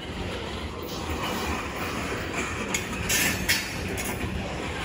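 Freight train's covered hopper cars rolling past, a steady rumble and rattle of steel wheels on rail, with a few short high-pitched bursts of wheel noise about three seconds in.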